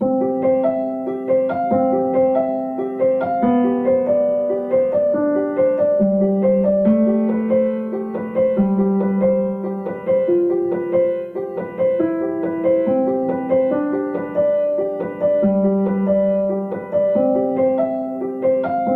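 Piano music: a slow, repeating melody of evenly spaced notes over held bass notes.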